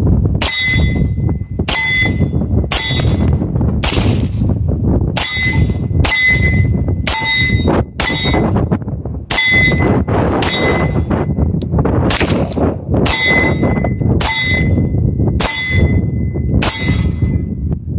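Beretta M9A3 9mm pistol fired about fifteen times at a steady pace of roughly one shot a second, each shot followed by the brief ring of a steel target being hit. Wind noise on the microphone throughout.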